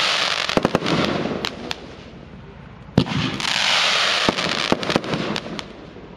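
The Branco, a 108-shot W-shaped compound firework cake, firing shots: a launch thump about three seconds in, then a hiss lasting a second or so and a string of sharp cracks as the shot breaks. The hiss and cracks of the previous shot fill the first two seconds.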